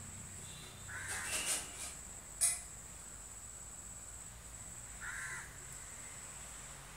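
A crow cawing twice, once about a second in and again about five seconds in, each call short, with a sharp click between them.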